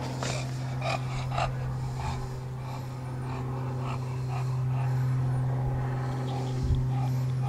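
Steady low mechanical hum from an unseen motor, swelling a little around the middle. Over it, in the first second and a half, come a few short puffs of breath from an English bulldog panting.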